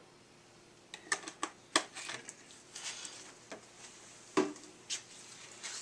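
An irregular string of sharp plastic clicks and knocks begins about a second in, with two louder knocks among them. They are quart plastic motor-oil bottles and caps being handled during an engine oil refill.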